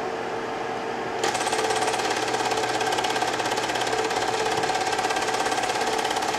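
Film projector running with a rapid, even mechanical clatter and a steady hum, getting louder and fuller about a second in.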